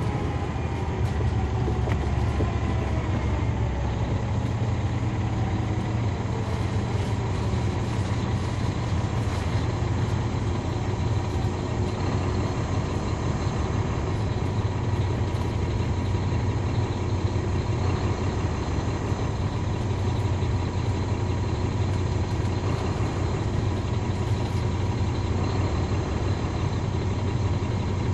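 Caterpillar C13 ACERT diesel engine of a NABI 40-foot transit bus, heard from the rear seats inside the bus, running steadily with a deep hum. A whine falls in pitch over the first few seconds.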